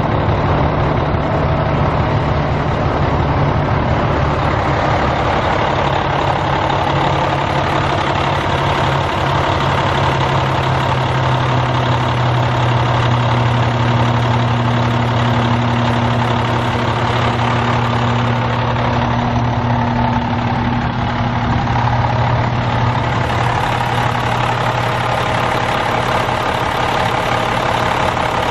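Cummins ISM 10.8-litre inline-six turbo diesel of a 2008 International TranStar 8600 semi truck idling steadily.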